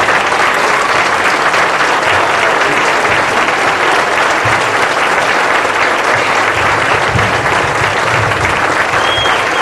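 Audience applauding steadily, a dense wash of many people clapping, with some low thumps in the second half.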